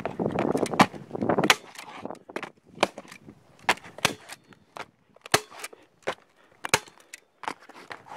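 Hand staple gun firing staples through black roofing underlayment: about seven sharp snaps, a second or so apart, with the sheet rustling as it is handled in the first second or so.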